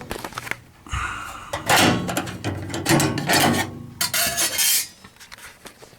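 Sheet-metal access covers on a gas water heater being pried and slid off: a run of irregular scraping and rubbing noises with a few knocks and a brief metallic squeal about a second in.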